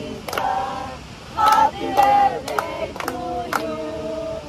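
People singing together, with hand claps keeping a steady beat of about two a second.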